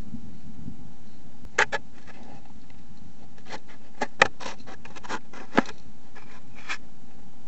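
Badger moving right by the trail camera: a scattered run of sharp clicks and scratches, about a dozen over some five seconds, over the camera microphone's steady hiss.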